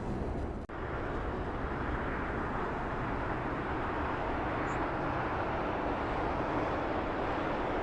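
Steady, even rumble of distant jet airliner engines across an airport, with a brief drop-out under a second in.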